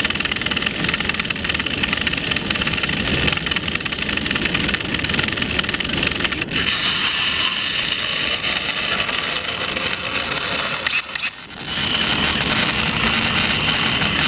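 Steady mechanical whirring with rushing air, as from a remote-control blimp's propeller motors. It shifts slightly about halfway through and dips briefly about three seconds before the end.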